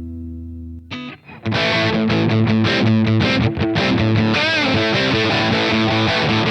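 Dean Avalanche electric guitar played through heavy distortion: a held chord rings with a slight wavering, stops short about a second in, then gives way to fast, choppy distorted riffing with a string bend midway.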